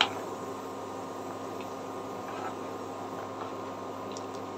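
Metal spoon gently stirring milk with hand-made semai in a non-stick pan: a few light clicks and scrapes of the spoon against the pan over a steady low hiss and hum.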